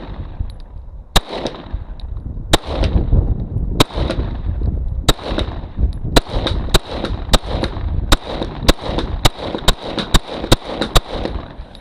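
Glock 19X 9mm pistol fired fourteen times. The first few shots are spaced more than a second apart, then they come faster, about two a second, each crack followed by a short echo.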